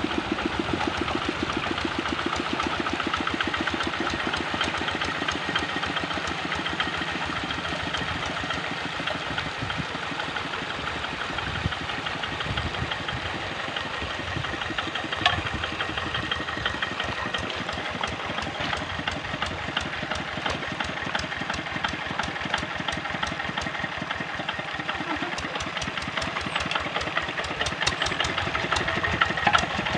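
Kubota RD65 single-cylinder diesel engine on a hand tractor running steadily under load with a rapid, even beat as the tractor works through a flooded rice paddy. A single sharp knock comes about halfway through.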